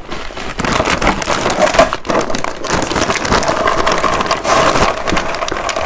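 Sun-dried boiled peanuts in their shells pouring out of a plastic bag onto a wooden tray: a dense, steady clatter of many light, dry shells tumbling and knocking against each other and the wood.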